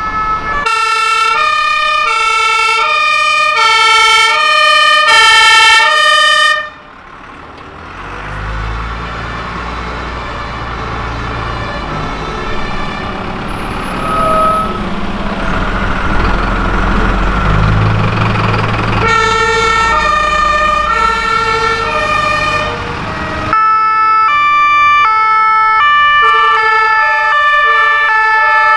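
German two-tone fire engine sirens (Martinshorn) alternating between two pitches, cutting off about six seconds in. A heavy diesel fire truck engine then runs past, low and rumbling, before two-tone sirens start again near the end, with a second siren of different pitch taking over.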